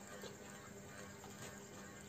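Quiet room with a faint steady hum, and a few soft clicks of a metal fork against a plate as noodles are twirled.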